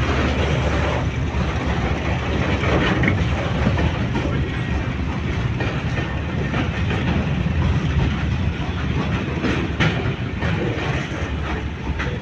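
Container freight train rolling past: steady rumble of steel wheels on the rails, with clickety-clack and sharper clicks as the wagons cross rail joints, more of them near the end.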